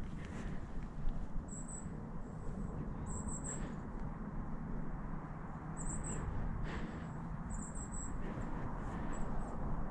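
Quiet outdoor woodland ambience: a steady low rumble with short, very high, thin chirps every second or two, and a faint knock about a second in.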